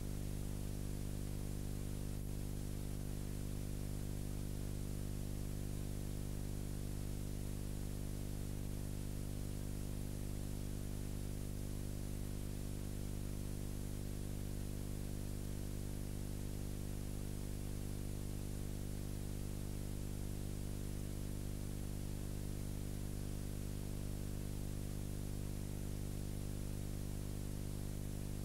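Steady electrical hum with a stack of even overtones, under a constant hiss: the noise floor of a transfer of silent film, with no sound from the scene itself.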